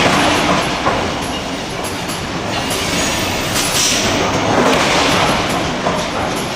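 Steady, loud rumbling noise of forge-shop machinery, without distinct hammer blows.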